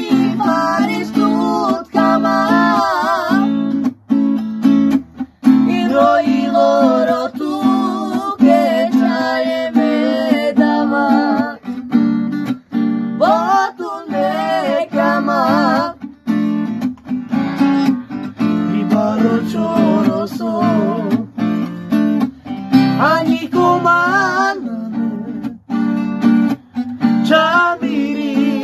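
Acoustic guitar strummed as accompaniment to a young male voice singing a Romani song, the melody wavering and ornamented with vibrato, with short breaks between phrases.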